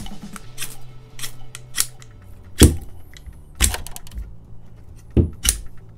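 Ferrocerium rod scraped hard and fast down the exposed spine of a 5.11 Ferro knife, throwing sparks. It is a string of about eight sharp, irregular strokes, several landing with a knock, the loudest about two and a half seconds in.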